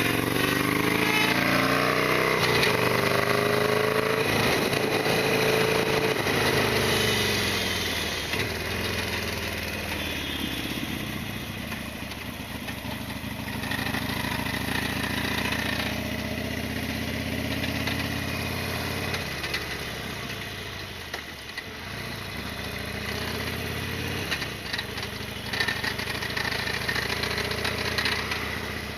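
Harley-Davidson Sportster XL1200R's 1200 cc V-twin engine running under way. It pulls with rising pitch over the first few seconds, then runs at a steadier speed, easing off briefly about three-quarters of the way through.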